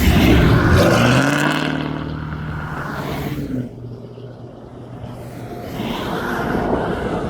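EMD SD70ACe diesel-electric locomotive's engine running under power, its turbocharger whining. It is loudest in the first second or so, drops off about halfway through and builds again near the end.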